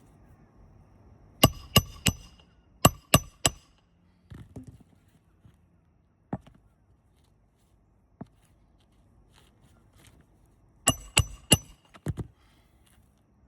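Hammer driving roofing nails into composition shingles: three quick ringing strikes, another three about a second later, then a third set of three near the end, with a few lighter knocks in between.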